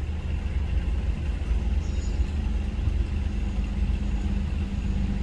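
A boat's motor running steadily: a low rumble with a constant hum.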